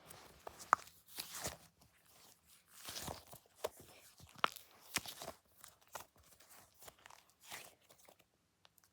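A squishy toy being squeezed and handled, giving scattered soft crackles, clicks and crinkly rustles at irregular intervals.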